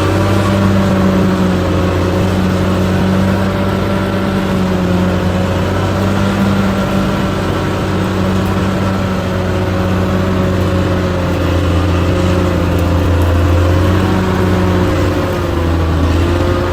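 Diesel engine of a heavy earthmoving machine running steadily, its pitch rising and falling slightly.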